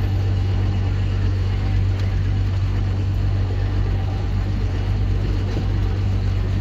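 Cummins diesel truck engine running at a steady cruise, heard from inside the cab while driving, with a constant low hum and road noise and no revving.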